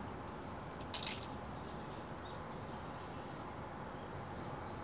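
Quiet outdoor ambience with a steady low background hum and a brief crackle about a second in.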